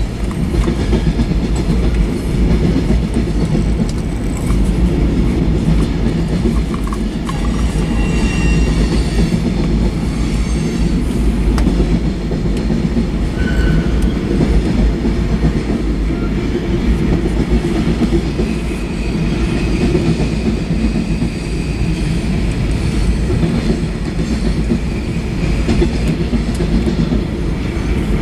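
Freight cars of a manifest train, tank cars and hoppers, rolling past at steady speed. Steel wheels on rail make a continuous low rumble with light clacking, and a few short high squeals come through.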